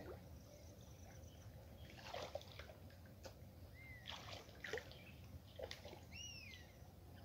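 Faint splashing and sloshing of muddy creek water as men wade chest-deep and grope for catfish by hand, with several short splashes. Two brief whistle-like calls, one about four seconds in and one near the end.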